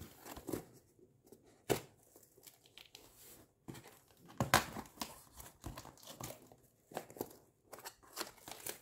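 Cardboard shipping box being opened with a folding knife: packing tape cut and pulled and the cardboard flaps handled, giving irregular rustling, crinkling and scraping with a few sharp clicks.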